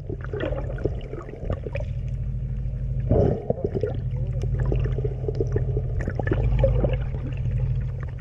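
Water splashing and gurgling against the hull, over a steady low engine hum, with a louder splash about three seconds in.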